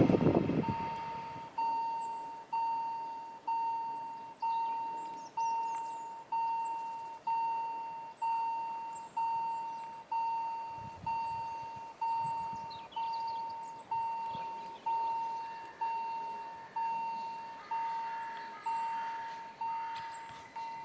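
Railway level-crossing warning bell ringing one steady tone, struck about once a second with each strike fading, warning of an approaching train. At the very start, the rumble of a passing freight train cuts off.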